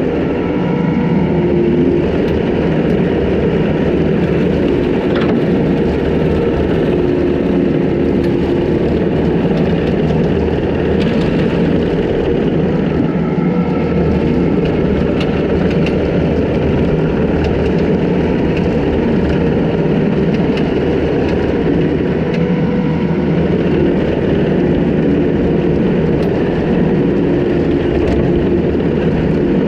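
Takeuchi TL250 compact track loader's diesel engine running steadily at working speed, with its skid-steer brush cutter spinning and mowing dry brush. The engine pitch wavers slightly as the load changes.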